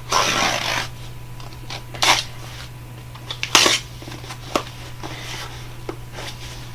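Cardboard shipping box being opened by hand: several bursts of tearing and rustling, the loudest about three and a half seconds in, with a few short sharp clicks between them.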